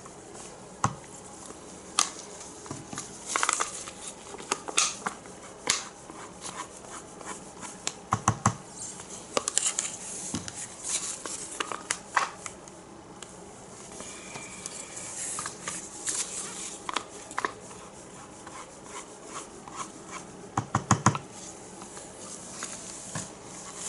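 Scattered light clicks, taps and rubbing from plastic paint cups being handled while fluid acrylic colours are layered into a cup, some of the clicks coming in quick little clusters.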